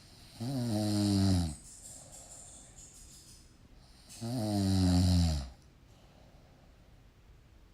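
Snoring: two long, low snores about four seconds apart, each lasting about a second and sliding slightly down in pitch, with softer breathing between them.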